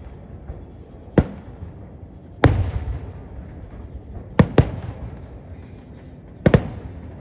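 Fireworks shells bursting in a show: five sharp booms, each trailing off in a rumble. The loudest comes about two and a half seconds in, and two follow in quick succession a little past four seconds.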